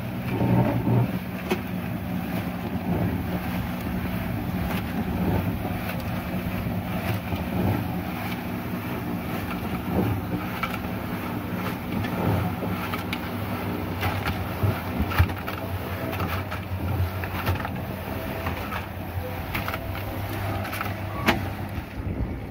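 A concrete mixer runs steadily with a low motor hum while its tipped drum turns and pours wet concrete into a loader bucket. Scattered knocks and clatters come throughout as the concrete drops out.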